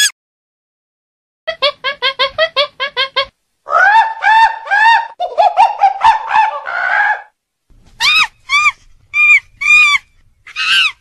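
High-pitched animal calls: a quick run of about eight short chirps, then longer, louder rising-and-falling squeals in close runs, then single squeals with short gaps near the end. They are most likely otter chirps and monkey squeals.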